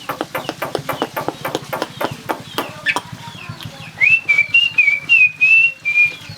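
Pet jalak starling calling: a fast, even run of clicks at about five a second, a short rising note near three seconds in, then a wavering whistle from about four to six seconds in.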